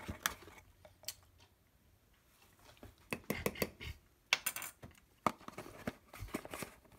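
Measuring spoons and spice containers clinking and knocking as they are handled while seasonings are measured into a bowl: scattered sharp clicks, with a quieter stretch between about one and three seconds in.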